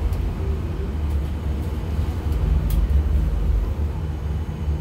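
Steady low rumble inside the cabin of the Roosevelt Island aerial tramway as it travels along its cables, with a few faint ticks.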